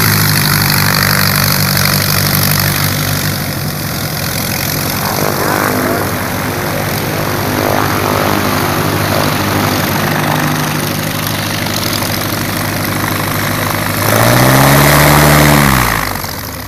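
Light propeller aircraft piston engines running at low power. About 14 seconds in, a louder engine note rises in pitch, falls back and fades.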